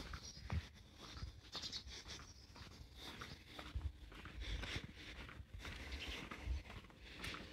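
Footsteps of a person walking on a pavement, soft irregular thumps, over faint outdoor street ambience.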